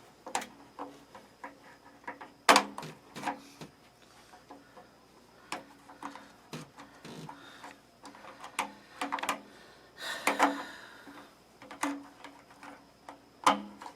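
Irregular clicks and knocks of small plastic parts being handled and snapped into place on an electric water heater, the sharpest about two and a half seconds in and near the end, with a brief scraping rustle about ten seconds in.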